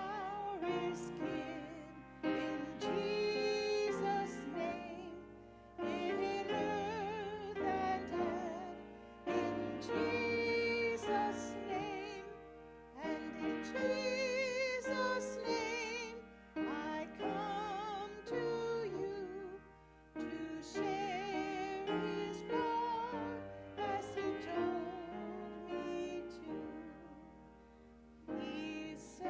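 A hymn sung with vibrato over piano accompaniment, in phrases of a couple of seconds with short breaks between them.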